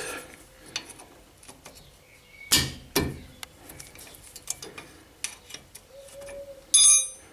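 Wrench working on a brake caliper bolt: scattered metallic clicks and knocks, two sharp ones a little under halfway through, then a bright ringing metal clink near the end.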